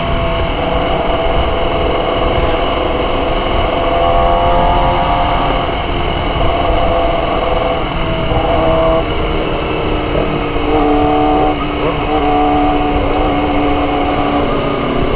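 Motorcycle engines running while riding, the engine pitch shifting up and down with throttle and gears, over a steady rumble of wind on the microphone.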